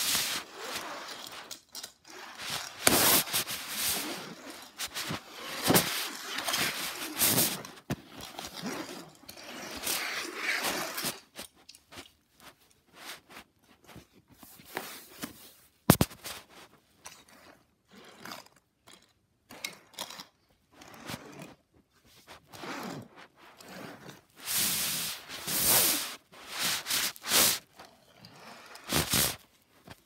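Hot Wheels toy cars being pushed over a fabric play mat: irregular bursts of scraping and rubbing against the mat, with one sharp knock about halfway through.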